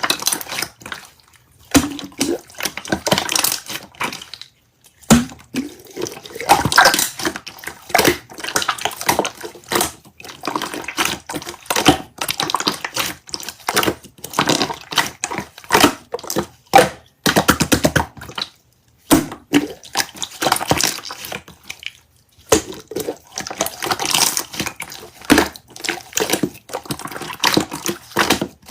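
Slime being squished and kneaded by hand: a dense, irregular run of wet clicks, pops and squelches, with a few short pauses.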